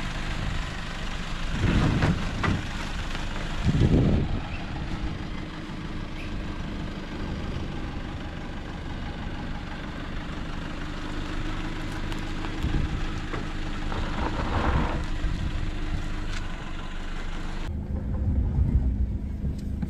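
Four-wheel-drive ute's engine running at low revs as it crawls over deep ruts on a dirt track, with a few louder surges along the way. Near the end the sound changes to the engine heard from inside the cab, duller and without the high hiss.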